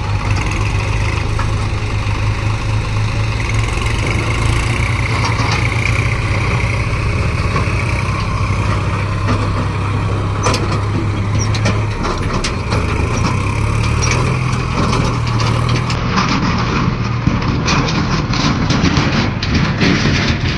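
JCB 3DX backhoe loader's diesel engine running steadily, a low drone; from about halfway through, scattered knocks and clatter join in.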